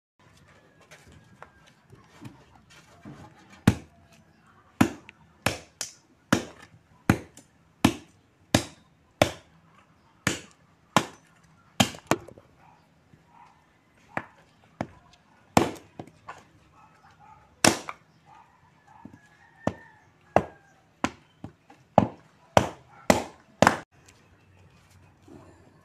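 Bolo (machete) chopping firewood: a long run of sharp chops, roughly one every three-quarters of a second, with a pause of about two seconds near the middle.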